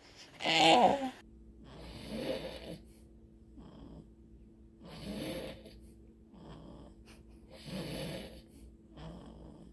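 A short pitched baby vocal sound just under a second in, then a man snoring in slow, even breaths, with a louder snore about every three seconds and softer ones between, over a faint steady hum.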